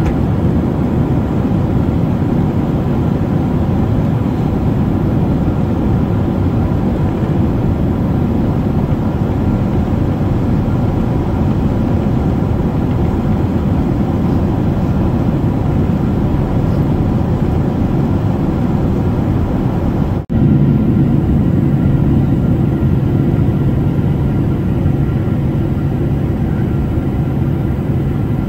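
Cabin noise of a Boeing 767-400 heard from a window seat over the wing through approach and landing rollout: a steady, loud engine and airflow roar, carrying on as the jet rolls down the runway with its spoilers up. The sound drops out briefly about twenty seconds in, after which a low steady hum is stronger.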